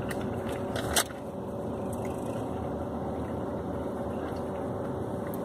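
Steady hum inside a parked car's cabin, with a single sharp paper rustle about a second in as the brown paper takeout bag is picked up.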